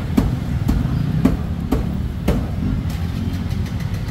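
Steady low rumble of motor traffic, with sharp knocks about once or twice a second.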